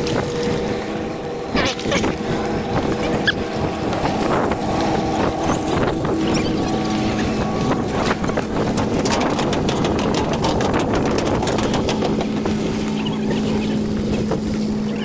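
A steady engine hum at a constant pitch, with footsteps and knocks over it.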